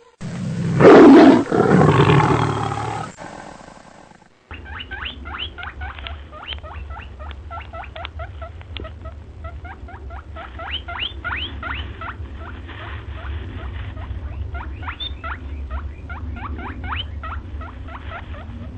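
A loud, brief outburst, likely a person shouting, then a dense chorus of short chirping animal calls, several a second, over a steady low rumble.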